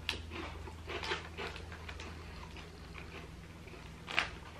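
Crunching and chewing of a thin, crispy gluten-free chocolate chip cookie: irregular crisp bites, with a sharper click about four seconds in.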